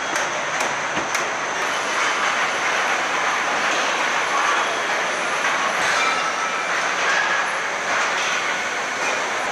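Truck assembly line factory noise: a steady mechanical din of conveyors and machinery, with a thin high whine throughout and a few sharp clicks in the first second.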